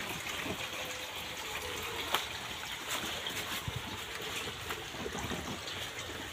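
Meltwater trickling and dripping from the hail-laden plastic sheeting of a greenhouse roof: a steady trickle with scattered light ticks and one sharper tick about two seconds in.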